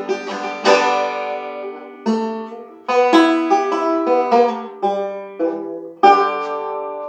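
Ashbury banjo played in clawhammer style, with plucked notes and strummed chords. Each group of strokes rings out and fades before the next, with fresh strums about 2, 3 and 6 seconds in.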